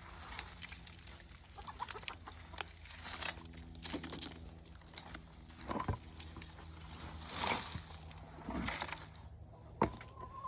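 Chickens clucking now and then, over scattered rustling and scraping.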